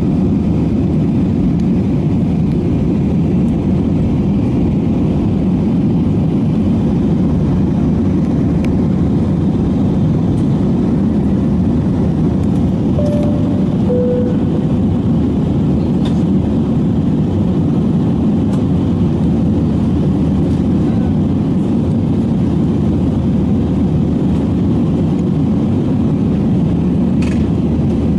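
Steady low noise of a jet airliner's engines and airflow heard inside the passenger cabin in flight. About halfway through, a short two-note chime sounds, the second note lower.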